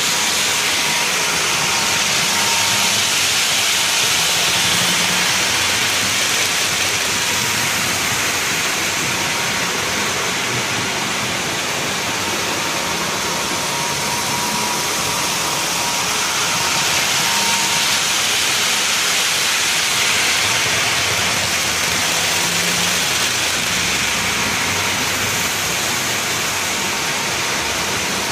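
Model trains running on a layout: a steady, even whir and rush of motors and wheels on the track, with a faint thin whine.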